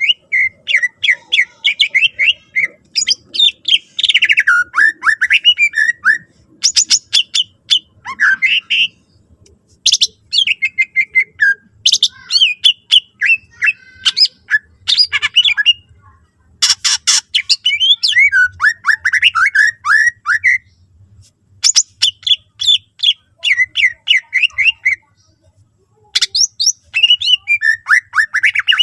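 Cucak ijo (green leafbird) singing a long, varied song: bouts of rapid repeated notes and falling trills broken by short pauses, with sharp, harsh rasping bursts mixed in several times.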